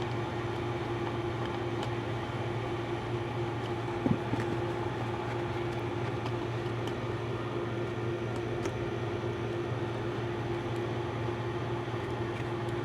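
Small ceiling fan's electric motor running with a steady hum: a low drone and one steady higher tone, with a single light knock about four seconds in.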